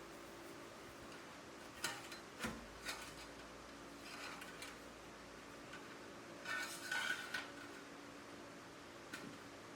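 Scattered light metal clinks and taps from exhaust parts and clamp hardware being handled while the muffler and tailpipe are fitted, the busiest stretch a bit past halfway, over a faint steady hum.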